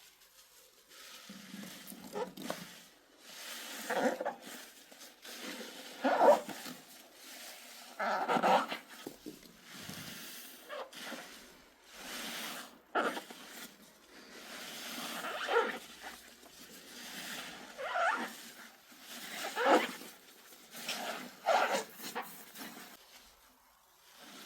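Soapy foam squeaking as it is squeezed and rubbed, in repeated strokes about every two seconds.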